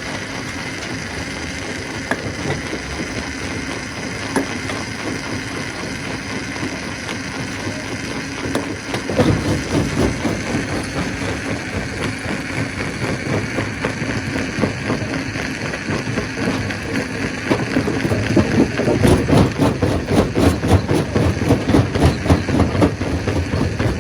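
Stone crusher machine running with a steady hum. About nine seconds in, a louder, rough rumble with rapid knocking sets in, and it grows louder again near the end.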